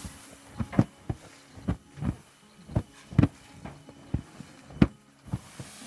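A series of about a dozen sharp clicks and knocks, irregularly spaced, each short.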